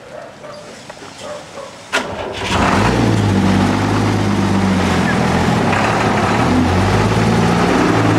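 Tanker truck's engine, coming in suddenly with a knock about two seconds in and then running loudly and steadily with a low hum close by.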